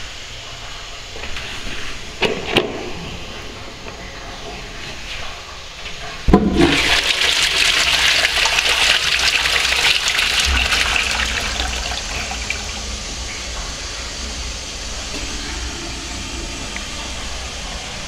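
Wall-hung Twyford Sola toilet flushing a bowl of toilet paper. A sudden loud rush of water about six seconds in, strongest for a few seconds, then easing to a steadier, quieter run of water as the bowl clears.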